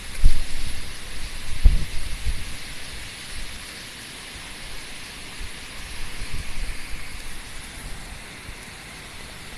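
Heavy typhoon rain hissing steadily, with gusts of wind buffeting the microphone in low thumps, strongest in the first two or three seconds.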